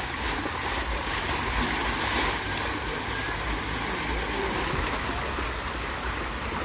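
Splash-pad fountain jets spraying up through a floor grate and falling back: a steady hiss and patter of water, with wind buffeting the microphone.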